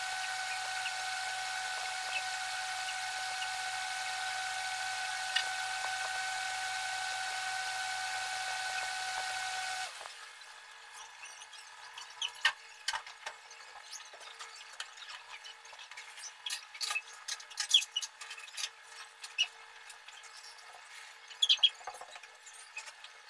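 A steady electrical hum with a thin whine over hiss for about ten seconds, which cuts off suddenly. After that it is much quieter, with scattered short scratches and taps of a pen drawing lines on paper.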